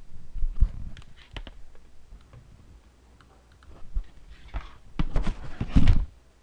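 Irregular clicks and knocks from handling things at a computer desk, with several louder deep thumps about five to six seconds in.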